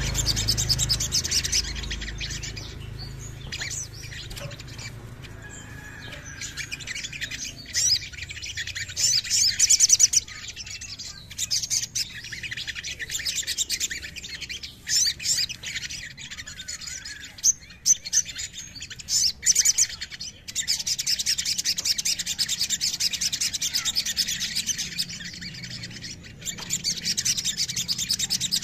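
Olive-backed sunbird song: rapid, high-pitched chirps and fast trills running almost without a break, loudest in bursts about a third of the way in and in long rattling trills in the last third.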